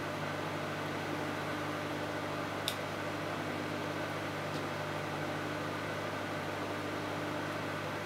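Microwave oven running mid-cycle: a steady low electrical hum with fan noise. A single sharp click comes a little under three seconds in.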